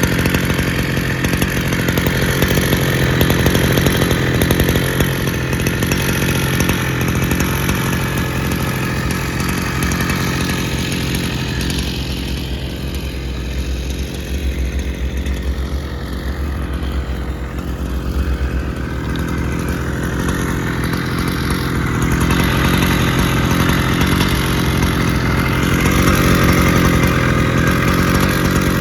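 Mitsubishi T200 brush cutter's two-stroke engine running at high revs, dropping to a lower speed about twelve seconds in and revving back up about ten seconds later. The engine runs on a converted diaphragm carburettor with a lightly tuned cylinder.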